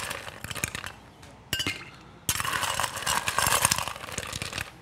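Ice cubes clinking and rattling into a cocktail glass in two spells, with a quieter pause of about a second between them.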